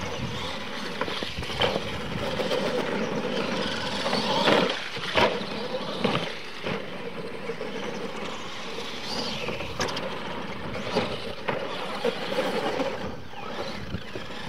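RC monster trucks running across a dirt track, a steady motor-and-gear whine with tyre noise, broken by several sharp knocks as they hit ramps and land, the loudest two about four and five seconds in.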